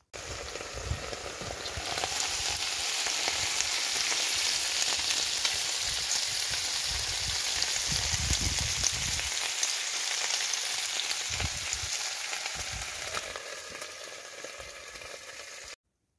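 Streaky bacon sizzling as it fries in a hinged cast-iron grill pan on a wood-burning stove: a steady hiss with many small pops. It builds over the first couple of seconds and cuts off suddenly near the end.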